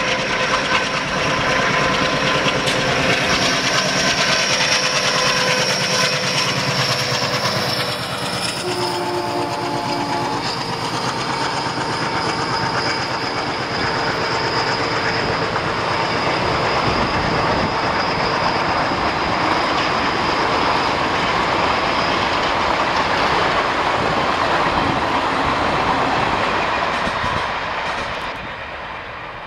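WDG 3A ALCO-design diesel locomotive approaching and passing with its engine running, sounding a horn blast of about two seconds some nine seconds in. Its passenger coaches then roll past, wheels clattering over the rail joints, fading away near the end.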